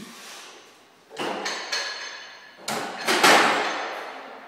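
Loaded barbell with 100 kg of plates being set back into the steel power rack: several metal clanks with ringing, the loudest about three seconds in.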